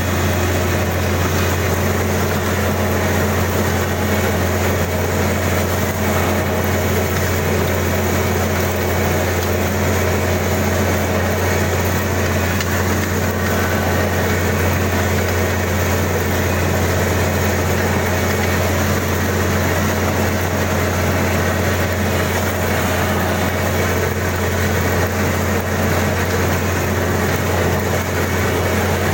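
Kubota DC-35 combine harvester's diesel engine running steadily at a constant speed, a continuous low hum with no change in pitch or level.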